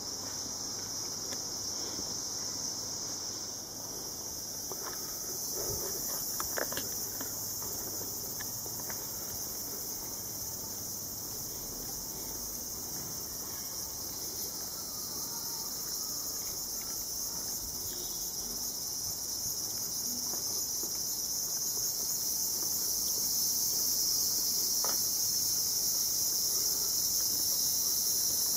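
Steady, high-pitched chorus of insects that grows a little louder near the end, with a few faint knocks.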